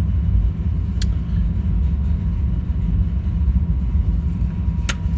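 Steady low rumble with two faint clicks, one about a second in and one near the end.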